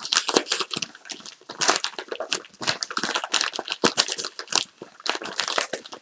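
Kraft paper mailer envelope crinkling and crackling in irregular bursts as it is twisted, squeezed and worked open by hand.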